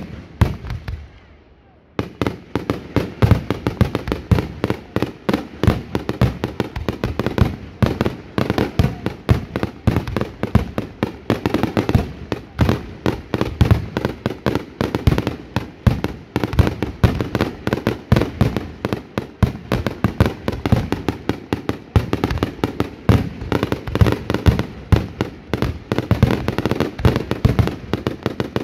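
Fireworks going off: a single bang at the start, then from about two seconds in a dense, unbroken barrage of bangs and cracks, many each second.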